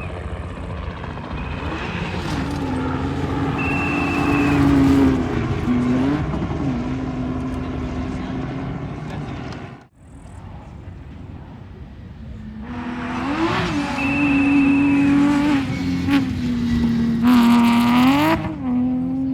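Rally cars at full throttle on a gravel stage: an engine held at high revs with brief dips and rises as it shifts, over a high whistle. It breaks off about halfway and a second car follows, ending in a loud rush of engine and gravel noise as it passes close.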